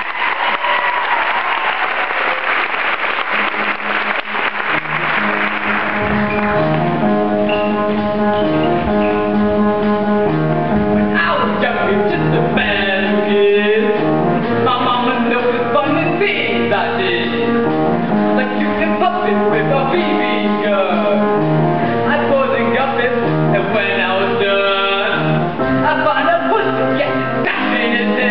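Audience applause for the first several seconds, then an instrumental accompaniment with a steady beat starts and, a few seconds later, a boy sings a solo into a microphone over it.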